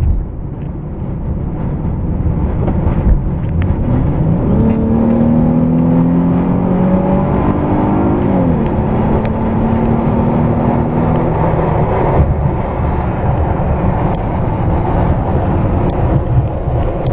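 Chrysler 300's engine accelerating hard, heard from inside the cabin over a constant low rumble. The engine note climbs and holds high, then drops sharply about halfway through as the automatic transmission upshifts out of second gear, and settles into a steady lower note.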